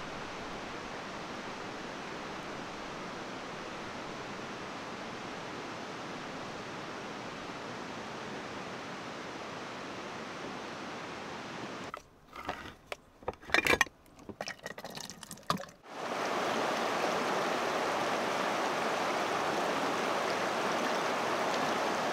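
A steady rush of water, then a few seconds of sharp clicking and grinding as a hand-crank can opener cuts around a can of beans, followed by the louder, steady rush of a fast river close by.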